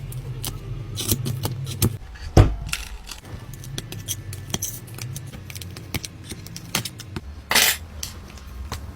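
Light clicks, taps and scrapes of small tools and parts being handled during a tablet screen repair, with one heavier thump about two and a half seconds in and a short hissing burst near the end, over a low steady hum.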